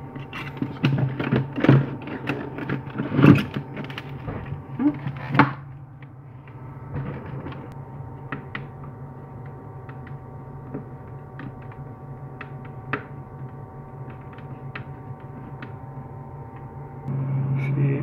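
Plastic clicks and knocks as the Hisense no-frost freezer's rear cover panel is fitted back over the evaporator and screwed down. The knocks are densest in the first five seconds, then thin out to scattered ticks over a steady hum, which grows louder near the end.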